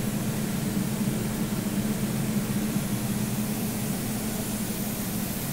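Steady machinery hum with an even hiss over it, constant in level, with no weld strikes or other sudden sounds.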